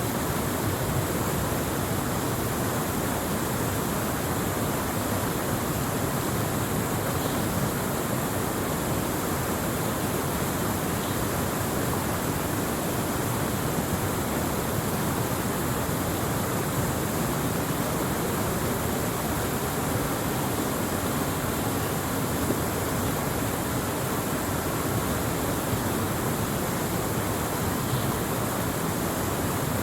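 Waterfall rushing steadily, an even unbroken roar of falling water.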